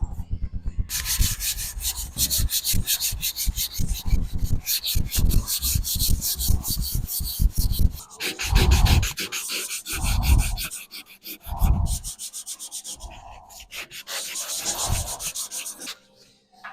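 Sandpaper being rubbed back and forth by hand over a car body panel, a fast run of scraping strokes several a second, then slower, more broken strokes with some duller thumps in the second half.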